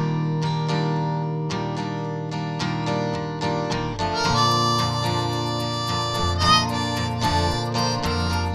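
Background music with a steady plucked rhythm. A held-note melody comes in about four seconds in.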